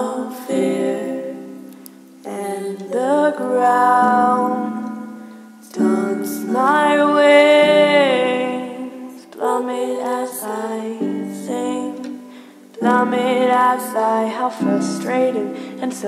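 A woman singing with her own electronic keyboard accompaniment: a sung melody over steady low piano chords, with one long held note about six seconds in.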